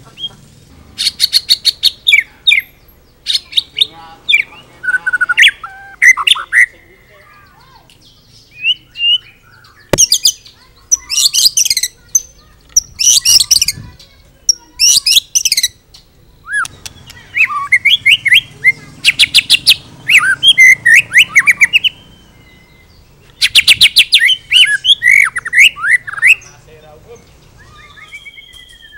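White-rumped shama singing in loud bursts: fast dry rattles alternate with whistled glides and chattering phrases, a song packed with mimicked calls of other birds. There are a few short pauses between bursts.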